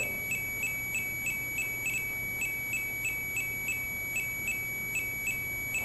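An electronic ghost-hunting meter beeps out a train of short beeps, about three a second, over a steady high tone. The investigators take the beeping pattern for Morse code dots and dashes.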